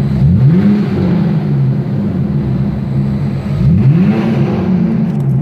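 BMW Z4 3.0i straight-six with its rear silencer deleted, revved while stationary in neutral, the exhaust note sweeping up in pitch twice, shortly after the start and again about three and a half seconds in. Heard in an enclosed car park.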